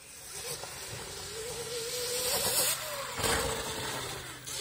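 Electric motor of a Zero FX dirt bike whining as it rides past, the pitch wavering as the throttle is worked, rising and then falling away. A short rush of noise about three seconds in.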